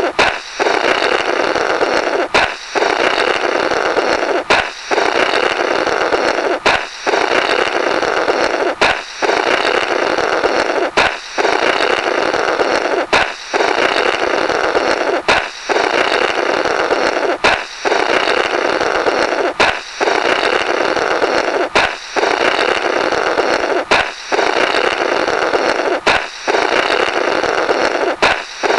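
Balloon pop followed by a long buzzing "blorrrt" of someone blowing through the burst rubber, a comical cartoon sound effect. The pop and blow repeat over and over, about every two seconds.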